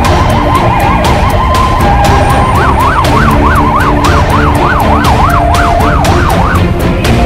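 Fire engine siren sounding. It starts as a quick, narrow warble and widens about two and a half seconds in into a yelp that sweeps up and down about twice a second.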